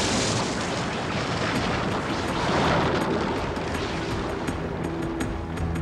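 A low rumbling sound effect of fire or lava, a dense noisy rumble that slowly thins out. Low, held, ominous music notes come in about halfway, with a light ticking beat near the end.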